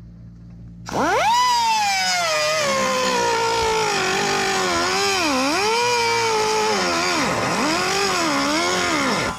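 Pneumatic cut-off tool starting up about a second in with a high whine, its disc pressed against the aluminum rib of an RV step so the pitch sags and recovers several times, dropping sharply near the end. The tool is barely scratching the metal, and the operator suspects too little air pressure from the compressor.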